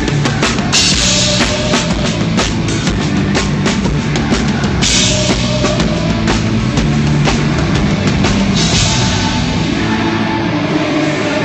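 Rock band playing at a sound check: a drum kit with bass drum and a steady beat, over sustained bass and guitar notes. Cymbal crashes come about a second in, about five seconds in and near the end.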